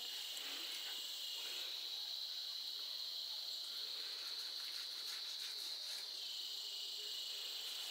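A steady, high-pitched chorus of insects chirring, holding one even pitch throughout.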